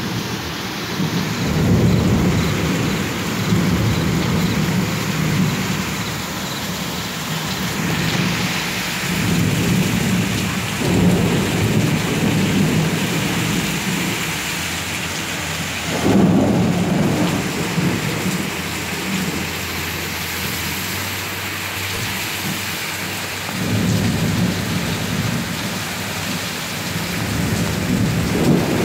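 Heavy rain pouring steadily. Low rolling rumbles of thunder swell and fade about four times.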